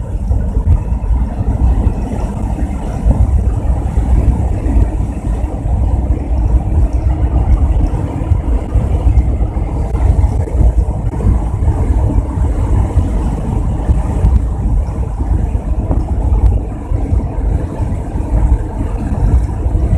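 Dodge A108 van cruising at road speed, heard from inside the cab: engine, tyre and wind noise as a steady, fluttering low rumble that sounds like gurgling water.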